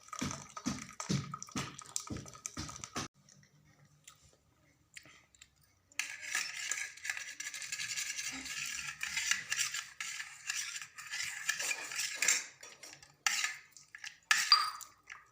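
Metal kitchenware clinking as a hot herbal decoction is strained into a glass: a quick run of clinks, a short pause, then several seconds of steady pouring hiss with clatter from the strainer and vessel, and a few more clinks near the end.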